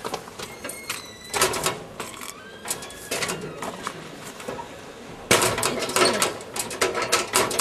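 Green sheet-metal school locker being handled: scattered clicks and knocks of the perforated door, latch and the things inside, then a dense run of loud metal clattering about five seconds in as the door is shut.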